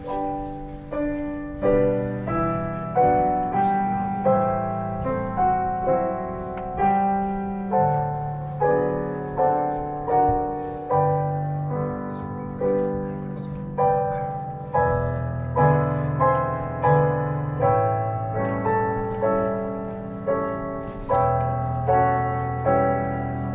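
Piano playing a slow, quiet piece: a chord struck about once a second and left to ring and fade, over held low notes.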